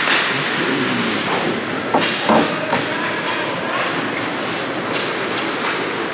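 Ice hockey play: skate blades scraping across the ice over a steady arena hiss, with sharp clacks of sticks and puck, the loudest a quick pair about two seconds in.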